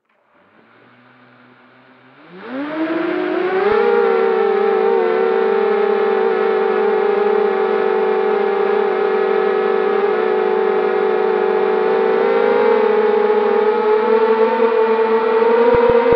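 Eachine Racer 250 FPV racing quadcopter's brushless motors idling faintly on the ground, then spinning up with a quick rise in pitch as it takes off, and whining steadily in flight with small shifts in pitch as the throttle changes. Heard close up from the camera mounted on the quad.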